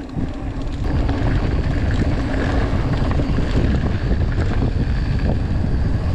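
Wind buffeting the microphone of a handlebar-mounted action camera on a moving mountain bike, a loud, steady rushing rumble with tyre and trail noise under it. It gets louder about a second in.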